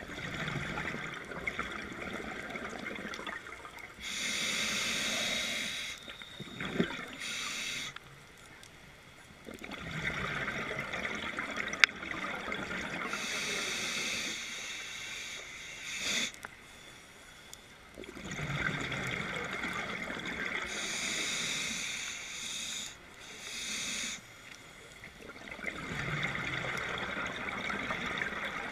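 Scuba diver breathing through a regulator underwater: a hissing inhale and a bubbling exhale, repeating in slow cycles about every eight seconds with short quiet pauses between. One sharp click about halfway through.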